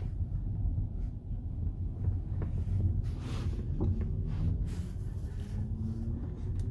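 Car suspension strut knocking: several irregular short knocks over a steady low rumble of the car on the move. The knock is the sign of a faulty strut.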